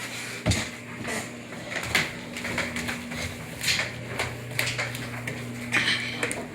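Footsteps going down a flight of stairs, a knock every half second to a second, with a steady low hum from an appliance setting in about a second in.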